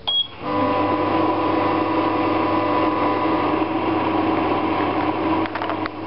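A click and a short high beep from a microwave oven's controls, then the oven starts up and runs on high with a steady hum, cooking a pie in a plastic basin. A few faint clicks come near the end.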